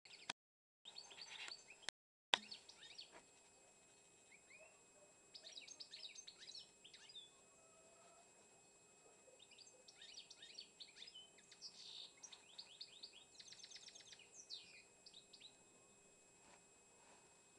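Caged songbird singing faintly: quick twittering phrases of rapid chirps and short down-slurred notes, in three or four bouts of a few seconds each with pauses between. A sharp click and brief cutouts come at the start.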